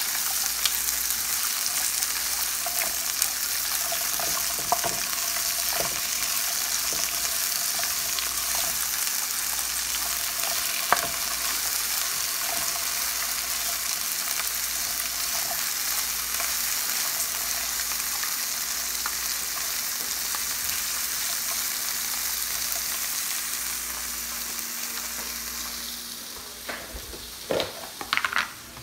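Asparagus spears sizzling steadily in hot olive oil in a frying pan, with occasional light clicks of a wooden spoon stirring them. Near the end the sizzle falls away and a few knocks follow.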